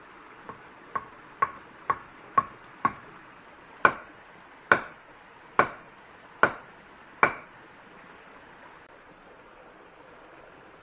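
A series of sharp chopping blows with a short ringing tone after each. There is a quick run of six about half a second apart, then five louder, slower ones a little under a second apart, ending about seven seconds in.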